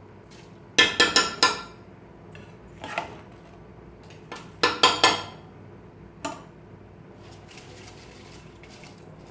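A metal spoon clanking against a cooking pot in quick groups of strikes, a few short clinks at a time, as rice is stirred into the stock for pulao; softer scraping follows near the end.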